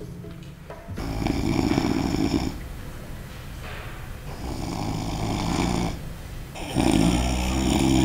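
A man's deliberately loud, exaggerated fake snoring: three long snores a second or two apart, the last the loudest.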